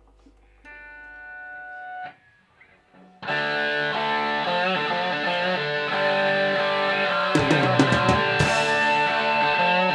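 Instrumental intro of a rock song: a held guitar chord swells and stops about two seconds in, then after a short pause the band comes in loud with distorted electric guitar. Several drum and cymbal hits land near the end.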